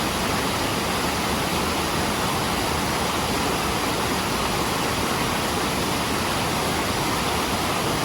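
Creek waterfall pouring, heard close up as a steady, even rush of water.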